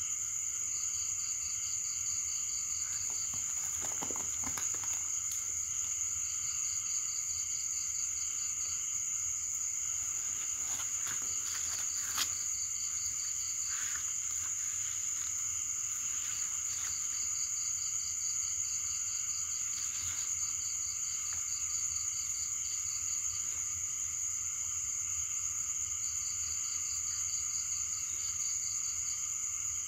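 Night insect chorus: a steady high-pitched drone with bouts of fast pulsed chirping that come and go every several seconds. Soft cloth rustling from the snake bag being handled a few seconds in and again around the middle, with one small knock.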